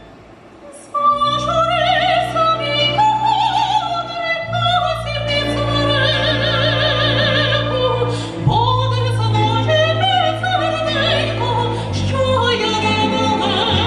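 Woman singing in an operatic style with strong vibrato, accompanied by a Ukrainian folk-instrument orchestra of banduras, button accordions, domras and violins. After a soft, fading note, the voice and orchestra come in loudly about a second in.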